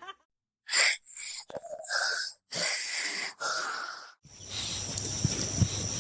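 A dog letting out a run of about five short, breathy huffs through the nose, one after another. About four seconds in they give way to a steady hiss.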